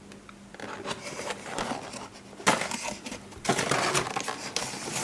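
Cardboard shipping case and plastic blister-packed diecast models being handled: crackling and scraping in bursts that get louder in the second half.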